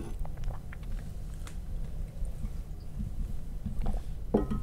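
A person drinking the last of a cup of coffee: faint sips, swallows and small clicks over a low steady microphone rumble, with a short breath or vocal sound near the end.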